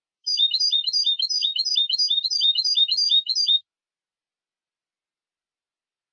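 European goldfinch (jilguero) song: one short, high twittering phrase repeated rapidly, about three times a second, breaking off about three and a half seconds in.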